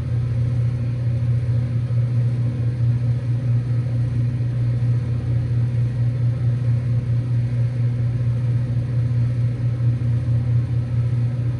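Two 2-ton 2023 Ruud Achiever air-conditioner condensing units running together with other condensers, a steady hum of scroll compressors and condenser fans.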